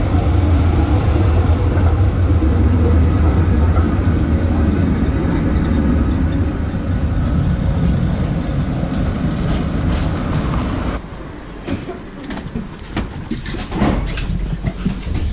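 Street tram running on its rails, a steady heavy rumble. About 11 seconds in this gives way to the quieter ride inside a tram, with scattered rattles and clicks.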